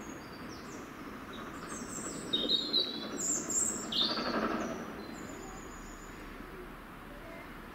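Small birds chirping and singing in short high calls, thickest in the middle few seconds, over a faint steady rumble from a steam tank locomotive drawing slowly closer.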